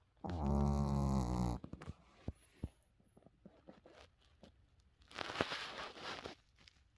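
A sleeper snoring: one loud, low, rattling snore lasting just over a second near the start, then a breathy, hissing breath about five seconds in.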